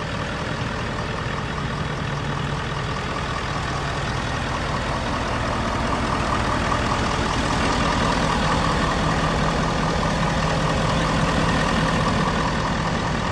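2011 Ford F-250 Super Duty's 6.7-litre Power Stroke turbo-diesel V8 idling steadily with its diesel clatter, growing gradually louder over the first several seconds.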